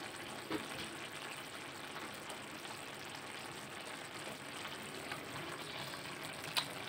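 Chayote and tuna simmering in broth in a wok on a gas burner: a steady, soft bubbling crackle. A brief knock near the end.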